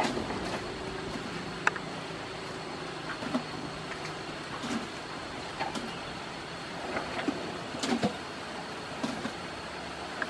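Asian elephants feeding on bananas: irregular soft knocks and crunches as bunches are picked up from the floor and chewed, over a steady background hiss.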